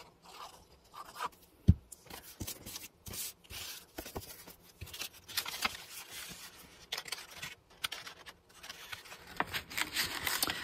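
Paper envelopes rustling and rubbing as they are handled, first glued and then one slid and worked inside the other, in short uneven scraping strokes. One soft knock comes near two seconds in.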